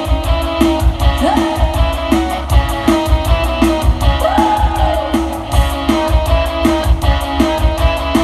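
Loud dance music played through a PA system, with a steady beat, instrumental backing and a singer's voice.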